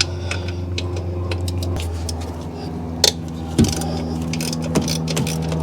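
Scattered metallic clicks and clinks of a ratchet and socket working a nut loose from a stud on the front of a Ford 3.0L V6, over a steady low hum.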